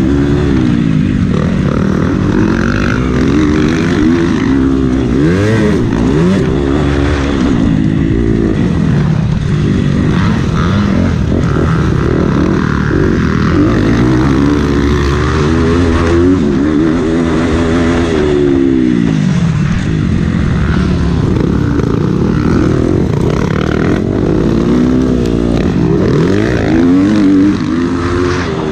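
KTM motocross bike's engine revving, its pitch climbing and falling over and over as the rider accelerates, shifts and backs off around the track.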